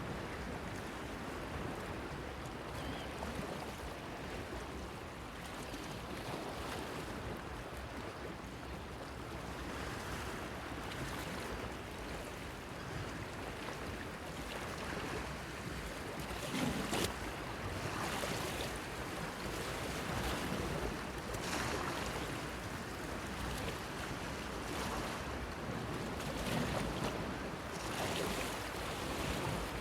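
Sea waves washing and splashing against a stone breakwater, a steady wash with several louder splashes, the strongest about halfway through.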